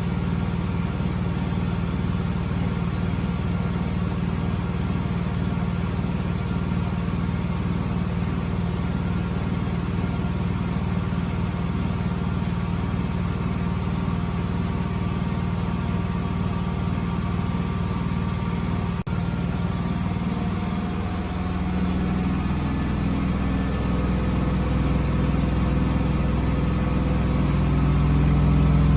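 Miele W Classic front-loading washing machine spinning. The motor and drum hum steadily, then shift in pitch and grow louder over the last several seconds as the drum speeds up.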